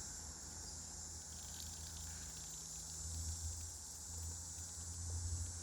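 Steady low electrical or mechanical hum with a faint high hiss, and no distinct event standing out.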